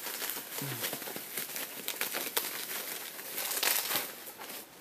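Packaging crinkling and rustling in irregular crackles as the puzzles are handled and unwrapped, with a louder stretch of crinkling near the end.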